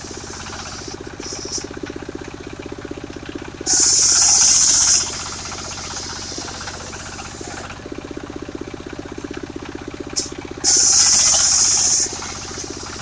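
Portable circular sawmill running steadily, its engine giving a rhythmic hum. Twice the saw cuts into mahogany with a loud, harsh, high-pitched burst of about a second and a half, starting and stopping abruptly.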